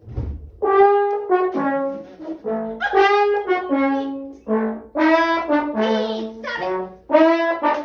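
A brass instrument, trombone-like, plays a melody of short held notes one after another, with brief gaps between phrases.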